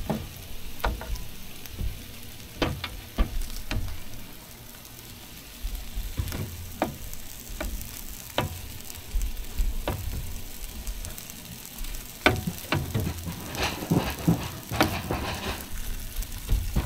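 Food sizzling and frying on the flat-top of a 17-inch Blackstone griddle, a steady hiss broken by scattered sharp clicks and knocks.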